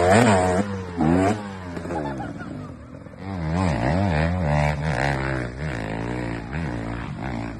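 Dirt bike engines revving up and falling back again and again, the throttle worked on and off as the bikes spin and slither up a muddy climb.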